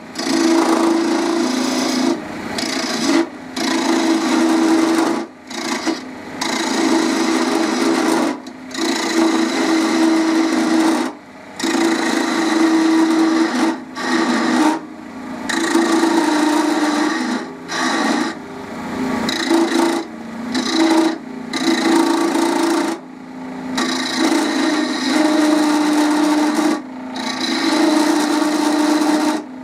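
A woodturning tool held against wood spinning on a small lathe, cutting with a steady rasping scrape over the hum of the lathe's motor. The cut breaks off for a moment every second or two as the tool is lifted away and set back on.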